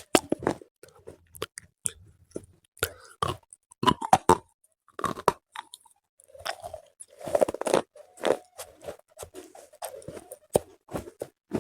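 Slate pencils being bitten and chewed close to the microphone: sharp, irregular crunches and brittle snaps, with wetter chewing between them.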